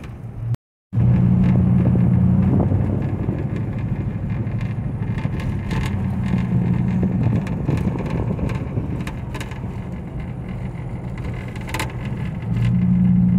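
Inside a moving vehicle's cabin: a steady engine and road drone with a low hum that swells and eases a few times, and scattered light clicks. The sound cuts out completely for a moment just under a second in.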